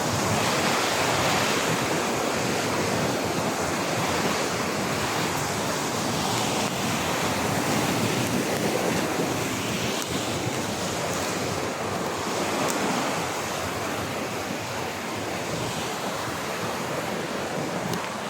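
Steady rushing of a river's flowing water, mixed with wind on the microphone.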